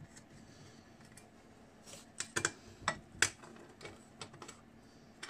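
Light clicks of a screwdriver turning out the small screws of a car-speaker crossover's plastic cover. There is a handful of sharp clicks, most of them between two and three and a half seconds in.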